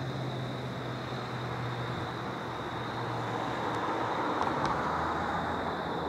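Road traffic: a vehicle's steady low engine hum over a wash of tyre noise, swelling louder about four seconds in.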